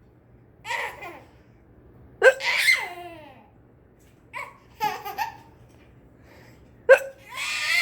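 Sharp hiccups with a baby laughing after them; a hiccup about two seconds in and another near the end each set off the loudest laughs, which fall in pitch.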